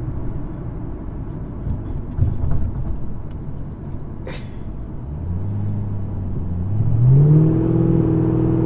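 2006 Ford Mustang GT's 4.6-litre V8 heard from inside the cabin: low road and engine rumble at first, then about five seconds in the engine note climbs as the car accelerates and settles into a steady, louder drone.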